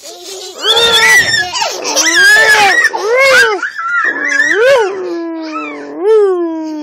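Toddlers' loud, drawn-out wailing cries, one after another, each rising and falling in pitch.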